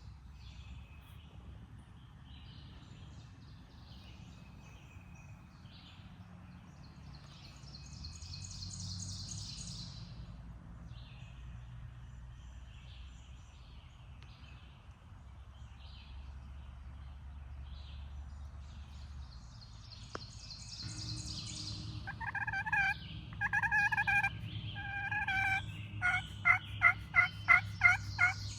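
Turkey yelping: a series of pitched yelps begins about three quarters of the way in and ends in a quick run of loud, evenly spaced notes. Songbirds sing short high trills throughout.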